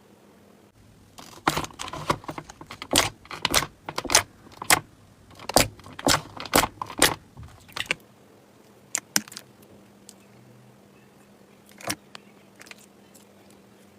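Slime being handled, with a dense run of sharp crackling pops and clicks from about a second in until about eight seconds, then a few scattered pops.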